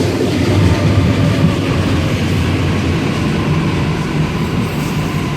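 Train running on the rails, a steady continuous noise strongest in the low range.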